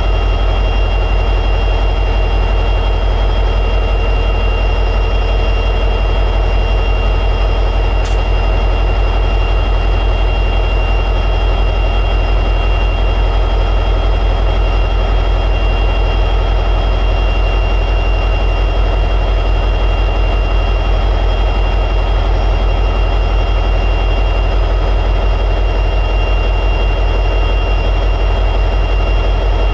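EMD 710G3B two-stroke diesel prime mover of an SD60E locomotive running steadily in high idle: a deep, even throb with a steady high whine above it. One brief click about eight seconds in.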